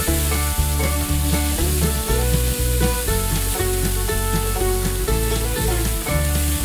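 Chili sauce and paste with chopped aromatics sizzling in hot oil in a nonstick frying pan, stirred with a wooden spatula. Background music with a steady bass beat plays throughout.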